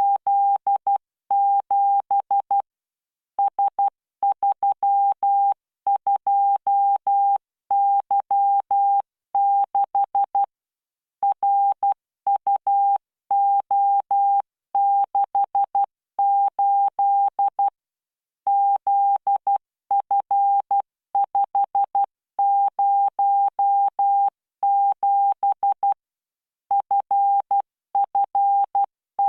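Morse code practice tone from the LearningMorse CW training software: a single steady beep keyed into dots and dashes at 12 words per minute with standard spacing. It is sent in groups, with a longer pause about every seven to eight seconds.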